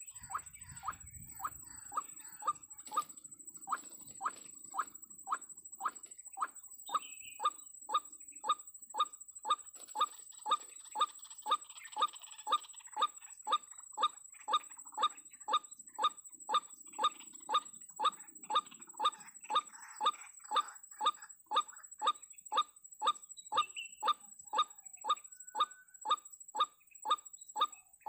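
White-breasted waterhen (ruak-ruak) calling: one short note repeated very evenly, about twice a second, without a break.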